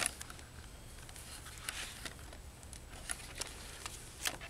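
Paper booklets and packaging being handled: soft rustles and a few scattered small clicks and taps, over a low steady hum.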